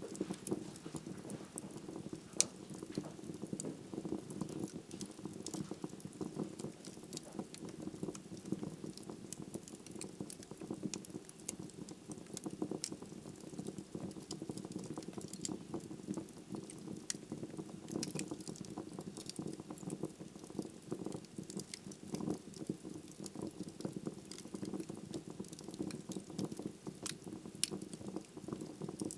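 Wood logs burning in a fireplace: a steady low rush of flame with frequent sharp crackles and pops, one louder pop about two and a half seconds in.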